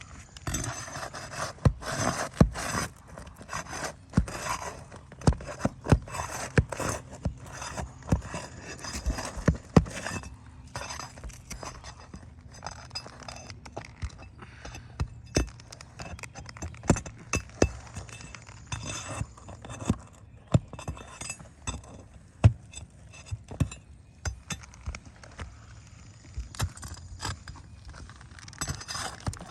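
Roofing hand tools, a roofing hatchet and a roof snake, working on asphalt shingles: irregular sharp metal taps and clicks with scraping as nails are worked loose under an old shingle. The taps are thickest in the first half, with louder single strikes scattered through.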